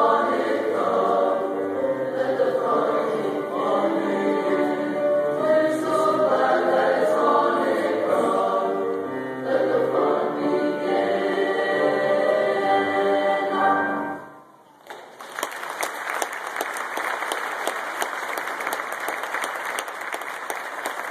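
Junior high school choir singing a Christmas piece, stopping about fourteen seconds in; after a brief pause the audience breaks into steady applause.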